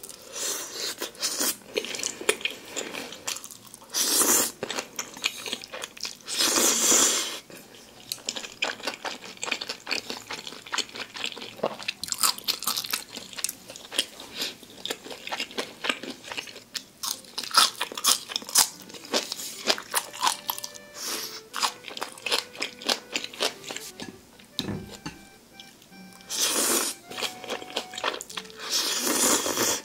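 Close-miked eating of jjajang ramen: noodles in black bean sauce slurped in several loud rushes of about a second each, with wet chewing and crunching of green onion kimchi between them. Soft background music with a simple melody plays underneath.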